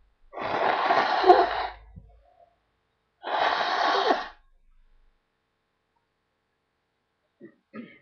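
A person blowing their nose hard, twice, each blow a steady rush of air lasting about a second.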